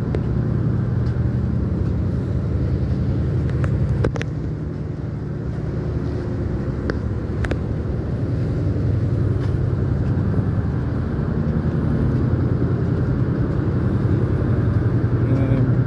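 Cargo ship's diesel engine running at cruising speed, a steady low drone heard from the open deck, with a couple of faint ticks about four and seven seconds in.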